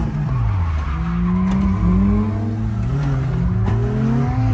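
Nissan 240SX drift car's engine revving with the throttle. The pitch drops in the first half second, then climbs and falls several times.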